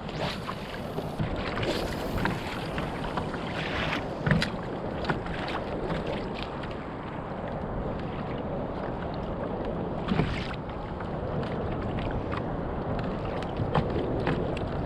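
Wind buffeting the microphone and water lapping around a fishing kayak, with scattered short knocks and splashes.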